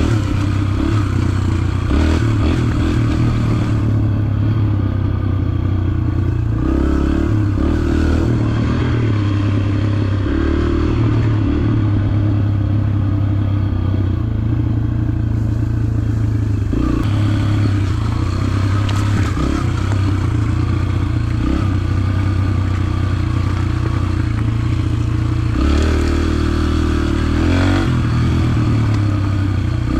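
Yamaha TT-R125 dirt bike's single-cylinder four-stroke engine running continuously while being ridden, its revs rising and falling several times with throttle and gear changes, with some clatter from the bike over the trail.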